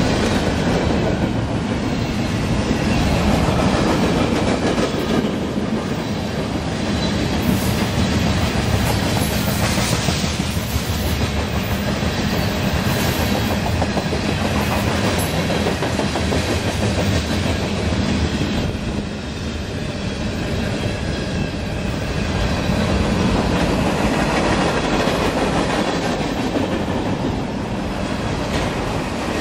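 Freight train of tank cars, covered hoppers and boxcars rolling past, a steady rumble with the wheels clicking rapidly over the rails.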